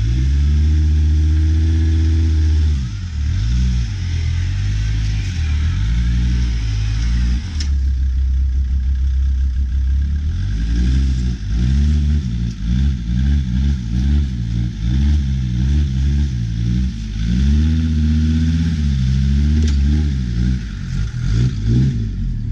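Off-road 4x4's engine revving up and down over and over, its pitch climbing and dropping every second or so in the second half, with a steady hiss underneath.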